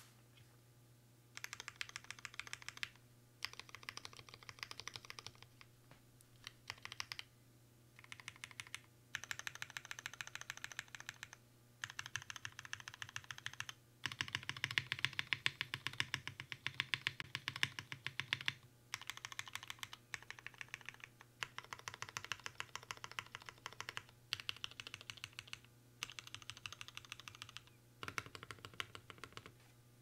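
Typing on a 60% mechanical keyboard with Cherry MX Black (retooled) linear switches lubed with Krytox 205g0, mounted on an aluminium half-plate with PBT keycaps. The keystrokes come in quick bursts separated by short pauses, starting about a second and a half in, with a denser, louder run of typing near the middle.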